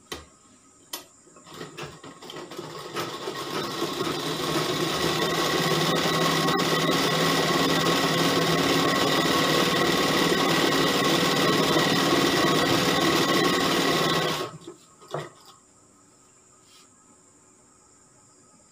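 Sewing machine stitching a seam joining two fabric panels. It starts after a few clicks, speeds up over the first few seconds and runs steadily, then stops about fourteen seconds in, followed by a couple of clicks.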